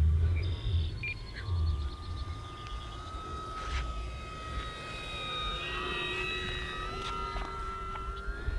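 E-Flite P-51D Mustang electric RC warbird on a slow, low pass: its electric motor and propeller make a steady whine that grows louder as it comes past and rises slightly in pitch near the end. Wind rumbles on the microphone, mostly in the first second or two.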